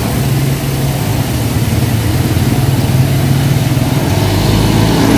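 Street traffic: motor vehicle engines running steadily, with a passenger jeepney and a motor tricycle passing close about four seconds in.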